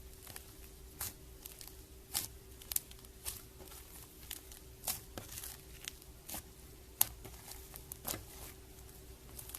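Slime being squeezed and crushed by hand, giving irregular sharp crackles and pops, about one or two a second. A faint steady hum runs underneath.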